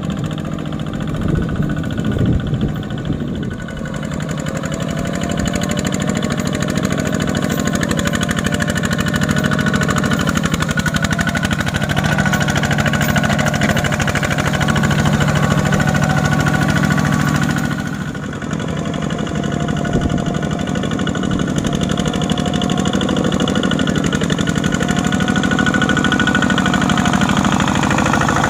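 Single-cylinder diesel engine of a two-wheel walking tractor (Kubota ZT-series type) running steadily under load with a fast, even chugging beat as it hauls a loaded rice trailer through deep water and mud. The sound dips briefly about two-thirds through, then picks up again.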